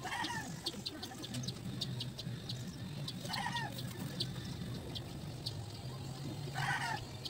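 A chicken clucking: three short calls about three seconds apart, over a steady low hum and faint rapid ticking.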